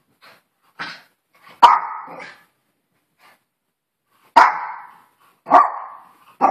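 Small Maltese-poodle dog barking: a soft bark about a second in, then four loud, sharp single barks, one to three seconds apart.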